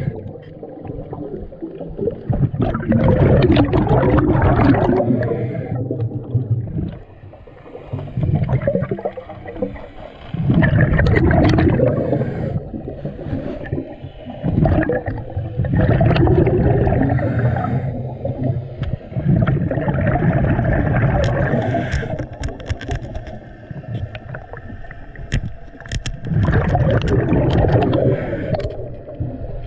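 Underwater bubbling and gurgling from a diver's exhaled breath, coming in bursts a few seconds long with quieter gaps between.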